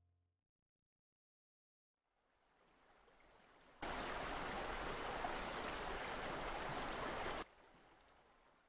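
Steady rushing noise like running water or static, with no tones in it. It swells in slowly, jumps abruptly louder for about three and a half seconds, then drops back and fades away.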